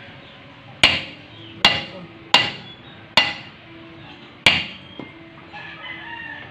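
Hammer blows on a steel brake drum to work the stuck drum off the hub: five sharp strikes over about four seconds, each ringing briefly, then a light knock.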